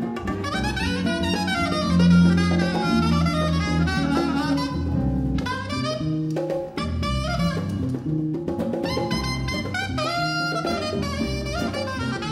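Live jazz band playing: a saxophone runs quickly up and down over acoustic guitar, bass and hand percussion.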